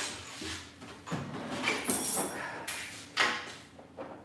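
Rummaging through a metal tool drawer for wrenches: a handful of separate clanks, slides and rattles, with a sharp knock about three seconds in.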